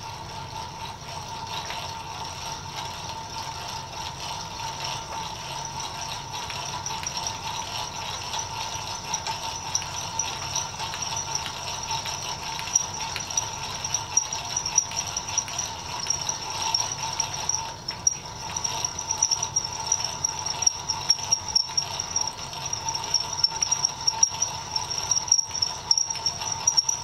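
Hand-cranked Miller Falls No. 120 breast drill turned in high gear, boring a twist bit into 1/8-inch steel: a steady squeal with a rattle, and sharp ticks that grow more frequent from about halfway on.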